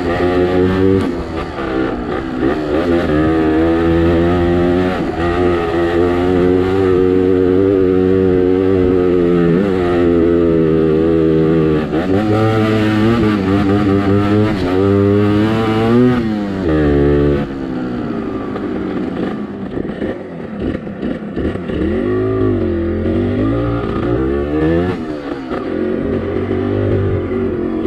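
Kawasaki KMX 125 two-stroke engine, running on a Yamaha RS 100 CDI fitted in place of the stock unit, revving up and down as the bike is ridden along a trail. The pitch rises and falls again and again, and it drops to lower, quieter running about two-thirds of the way through.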